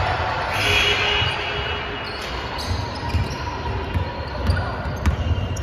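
Basketball being dribbled on a hardwood gym floor, with repeated low thuds and players' footsteps during live play, echoing in a large gym.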